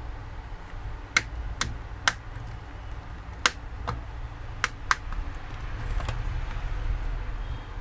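About six sharp, irregular clicks and taps from a smartphone being worked apart with small tools, over a steady low hum.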